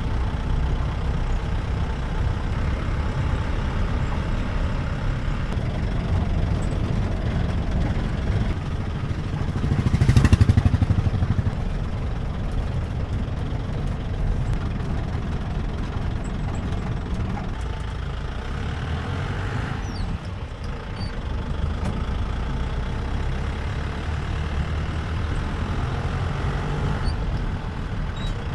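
Jeep engine running steadily as the jeep drives along a road, heard from on board. About ten seconds in it briefly grows louder.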